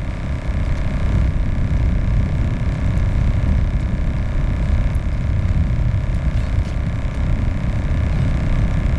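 Wind buffeting the microphone on open ice: a loud, steady low rumble with a faint, even hum underneath.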